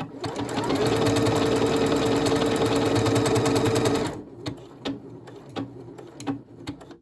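Necchi NM2000 digital sewing machine running fast on an alphabet stitch, a rapid steady needle rhythm over a motor whine, stitching one letter and then stopping by itself about four seconds in. A few light clicks follow.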